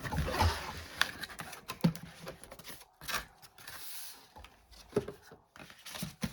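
Cardboard flip box and packaging being opened and handled: scattered scrapes, rustles and light knocks, with a couple of short pauses.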